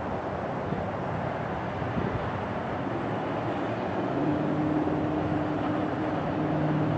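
MBTA commuter train approaching, cab car leading and pushed by an EMD F40PH-3C diesel locomotive: a steady rumble of engine and rail noise, with a steady low tone joining about four seconds in as it draws closer.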